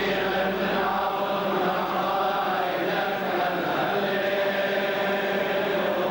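Many men's voices chanting a church hymn together, unbroken through the whole stretch.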